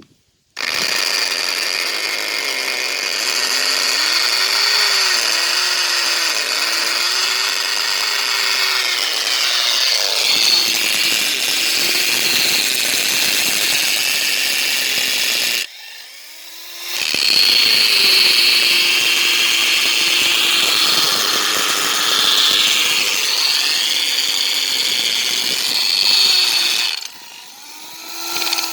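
Electric drill with a masonry bit drilling, running loud and steady in two long bouts, about fifteen and ten seconds long. Between them, about fifteen seconds in and again near the end, it drops away briefly while the motor winds down and then spins back up.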